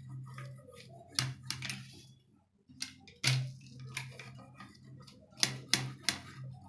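Wheel pizza cutter rolling through a baked pizza, with several sharp clicks and scrapes as the metal wheel meets the metal pizza pan.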